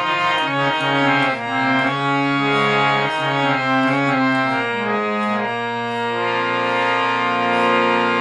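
Harmonium playing after a touch-up repair: reedy notes moving over sustained chords, settling into one long held chord about six seconds in.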